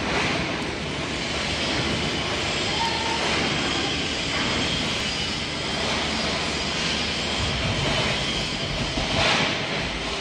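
Steady mechanical running noise from machinery, even in loudness throughout, with a faint high whine over a dense rushing noise.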